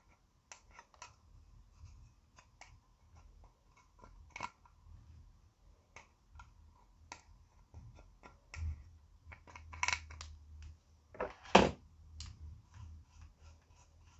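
Wooden stick scraping and crumbling pressed highlighter powder in its plastic compact: scattered small scrapes and clicks, with a couple of louder crunches about ten and eleven and a half seconds in.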